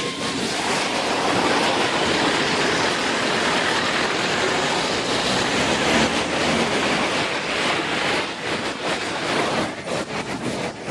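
Loud, steady rushing roar that turns rougher and more broken near the end.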